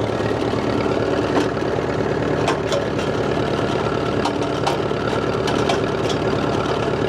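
Old International diesel tractor engine running steadily at idle while the hydraulic lift is worked up and down, with a few short sharp clicks.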